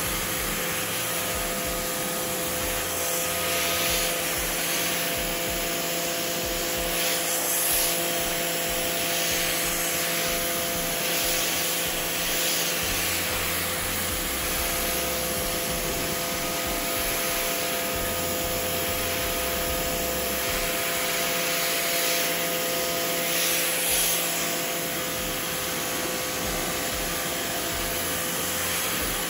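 Pressure washer running steadily, its motor and pump humming under the hiss of the water jet spraying across wet outdoor carpet.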